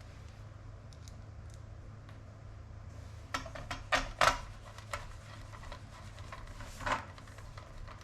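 Parts of a universal iPad yoke mount being handled and fitted: a quick run of sharp clicks and knocks a little past the middle, and one more near the end, over a low steady hum.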